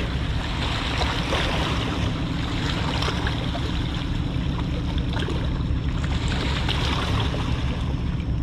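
Steady low drone of a large tanker ship's engines as it passes, over a wash of water lapping against the rocky bank.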